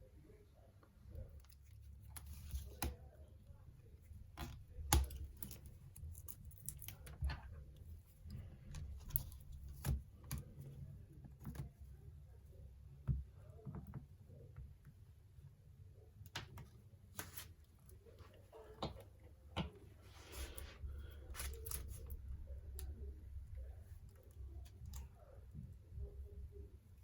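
Scattered small clicks and scrapes of plastic being pried and handled as a laptop screen panel is worked free of its front bezel, with a scratchier stretch of scraping about two thirds of the way in.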